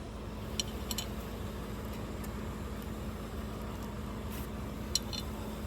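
A steady low hum with a few light, sharp metallic clicks.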